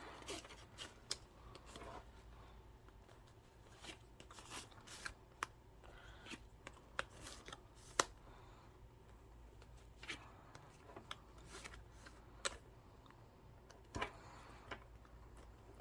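Plastic cards being handled and slid into the card slots of a fabric wallet: faint, scattered taps and rubbing, with a few sharper clicks.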